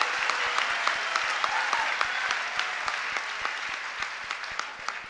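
A large dinner audience applauding. The clapping dies down steadily and thins to scattered single claps near the end.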